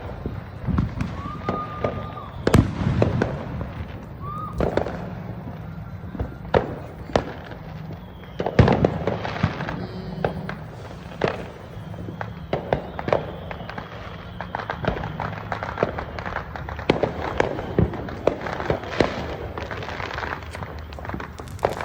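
Fireworks and firecrackers going off repeatedly: a dense, irregular string of sharp bangs and pops, with the loudest bursts about two and a half seconds in and again around eight and a half seconds.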